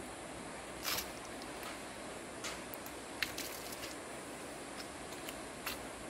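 Steady hiss of rainforest and river ambience, with a few irregular sharp clicks and clanks from walking on a steel-mesh suspension bridge deck, the loudest about a second in.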